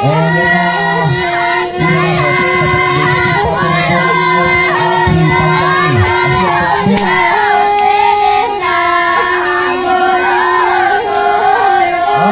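Music: female and children's voices singing together over long, held instrumental notes.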